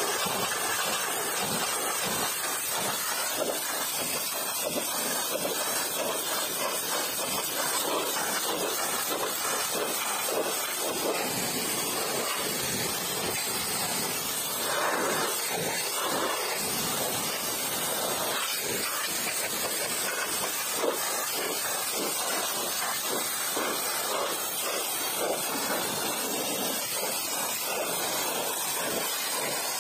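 Pressure-washer jet spraying water against a car's wheels and lower body panels, a steady hiss of spray.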